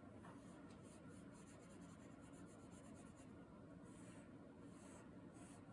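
Faint scratching of a dry watercolor crayon on paper, in quick short strokes that come in clusters.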